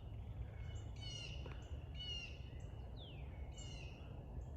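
A bird calls several times, about once a second, with one falling call near the middle, over a faint low background rumble outdoors.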